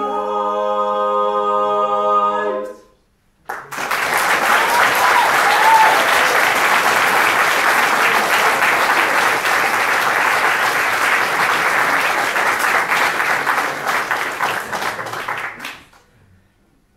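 Music ending on a held chord, then after a brief pause a seated audience clapping for about twelve seconds, starting suddenly and dying away near the end.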